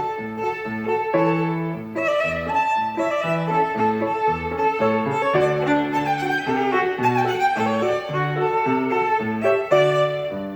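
Violin playing a melody over a low accompaniment that moves between bass notes in a steady, repeating rhythm.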